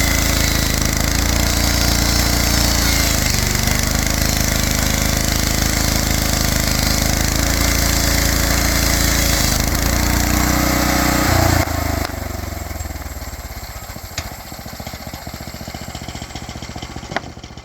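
Engine of a homemade portable sawmill running loud, its pitch dipping and recovering a few times as the load changes, then shutting off about twelve seconds in. After that the machine runs down, fading with faint ticking and a couple of sharp clicks.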